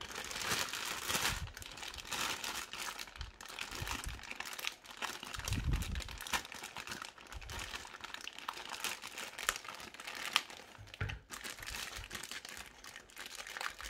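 Clear plastic bag crinkling and rustling as hands handle it and slide a PVC figure out of it, with a stream of fine crackles. There is a dull thump about six seconds in and a sharper crackle a little after ten seconds.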